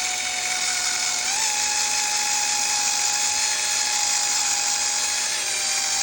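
Electric drill running steadily, spinning a fiber polishing pad with silver polish against an aluminium knob. It gives a steady motor whine over a hissy scrubbing noise, and the whine lifts slightly in pitch about a second in.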